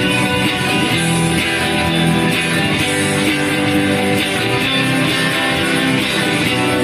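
Music with guitar, strummed, playing steadily at a full level.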